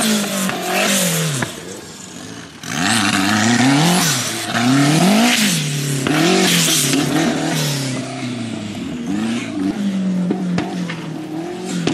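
Off-road racing buggy's engine revving hard and easing off again and again as it is driven through a dirt course, the pitch sweeping up and dropping back several times.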